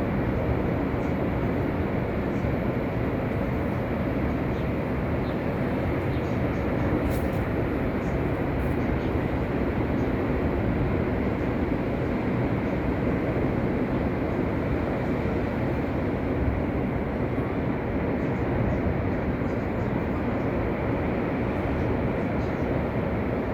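Heavy winter sea surf: a steady, unbroken roar of big waves breaking.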